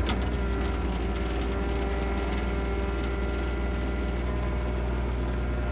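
An engine running at a steady speed, a constant deep hum with a few fixed higher tones over it and no change in pitch.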